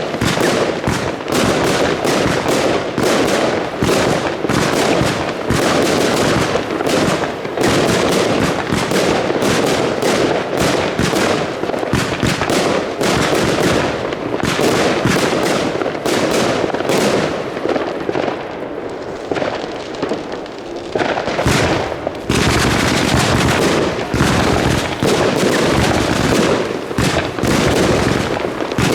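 Fireworks going off in a dense, rapid barrage of bangs and crackles, easing off briefly about two-thirds of the way through before picking up again.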